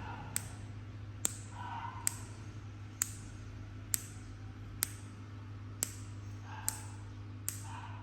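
Sharp mouth clicks, evenly spaced at about one a second, as a rhythm for a pet sun conure to dance to, over a steady low hum.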